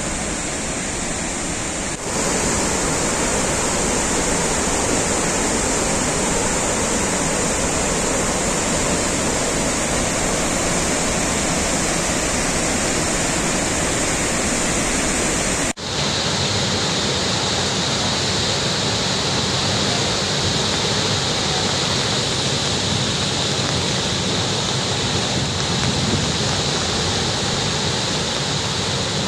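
Floodwater rushing through a swollen river and over waterfalls, a steady noisy rush of water. It cuts out briefly about halfway through and comes back with a slightly different tone.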